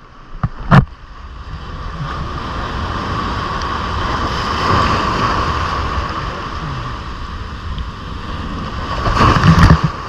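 Surf breaking against a rock jetty: the wash of the sea builds to a peak about halfway through, then a wave crashes on the boulders near the end, throwing spray. Two sharp knocks in the first second are the loudest moment.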